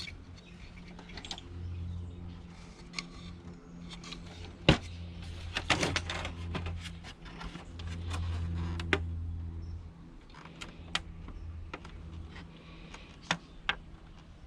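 A small electric motor hums in stretches of a second or two, stopping and starting, among sharp clicks and knocks of plastic parts and tools being handled.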